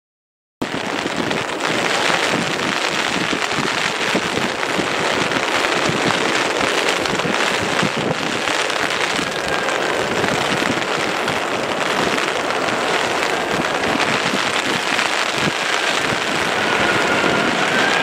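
Steady hiss of heavy rain starts suddenly about half a second in. Near the end, the high whine of an approaching Airbus A380's jet engines begins to rise over the rain.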